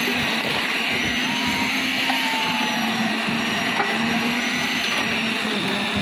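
Diesel concrete mixer machine running steadily: a continuous machine noise with a faint steady hum underneath.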